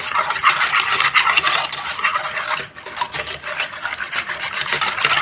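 A whisk beating a thin liquid custard mixture of custard powder, sugar and milk in a small non-stick saucepan. It makes rapid, continuous whisking strokes, with a brief pause a little past halfway.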